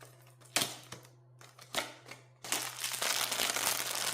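Blind-box packaging being handled: a few short rustles, then from about halfway in a continuous crinkling of wrapping as the box is unpacked.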